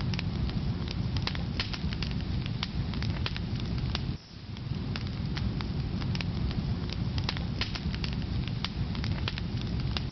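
Wood fire burning in a fireplace: a steady low rumble of flames with frequent sharp crackles and pops from the logs. The sound dips briefly about four seconds in.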